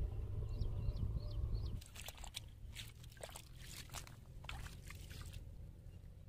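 Several quick wet splats and squelches in soft mud over a few seconds. Before them, a low wind rumble on the microphone with faint bird chirps cuts off suddenly.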